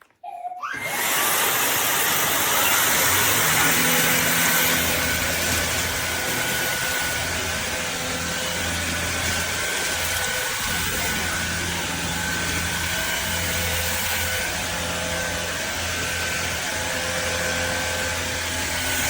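Shark cordless stick vacuum motor switching on under a second in, spinning up with a short rising whine, then running steadily with a loud whooshing hum and a few steady tones.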